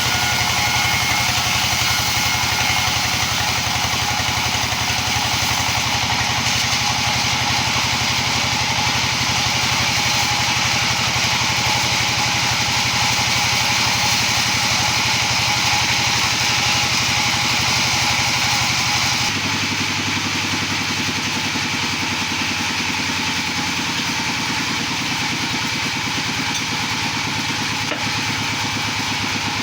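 Engine-driven wood-slicing machine running steadily; its tone and level drop slightly about two-thirds of the way through.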